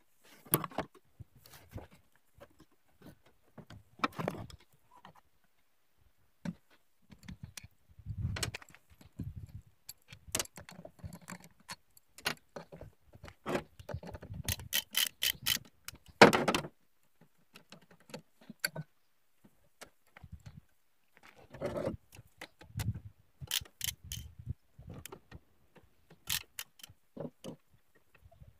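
Metal clinks and clicks of a socket wrench and extension undoing the bolts of a Honda Dio scooter's variator cover, with short runs of quick clicks about halfway through and again near the end.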